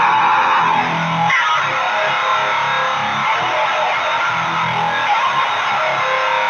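Heavily distorted electric guitar playing a continuous riff in B standard tuning, through a Boss HM-2 distortion pedal boosted by a Boss SD-1 into a Jet City JCA22H tube amp: the buzzsaw 'chainsaw' HM-2 tone.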